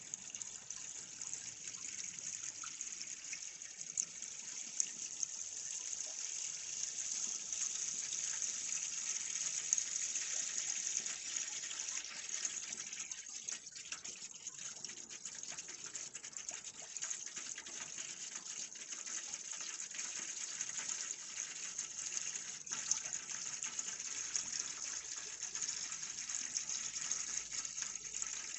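Kitchen tap running steadily, a stream of water splashing into a stainless steel sink.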